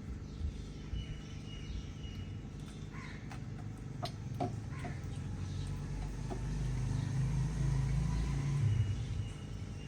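Rural outdoor ambience: scattered bird calls and short clucks over a low rumble that swells about six seconds in and fades near the end, like a vehicle passing.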